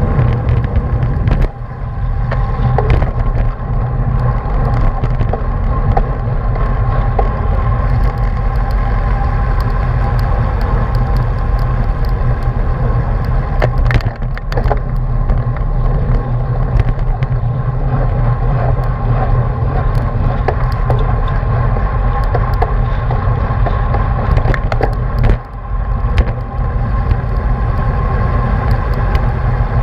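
Wind buffeting the microphone of an action camera on a racing bicycle riding fast in a pack, with a steady rumble of road and tyre noise and a faint steady whine underneath.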